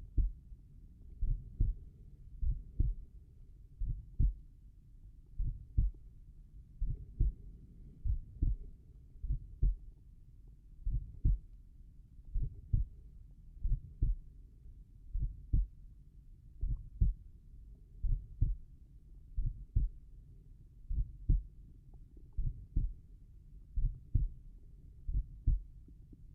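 Slow, relaxed human heartbeat, a lub-dub pair of low thumps about every one and a half seconds, roughly 40 to 45 beats a minute.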